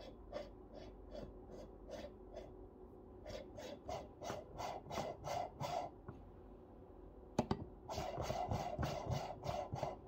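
A coffee distribution tool is twisted back and forth on a portafilter full of ground coffee, rasping against the basket rim in repeated strokes of about three to four a second, getting louder partway through. There is one sharp click about seven seconds in, then a denser rasping near the end.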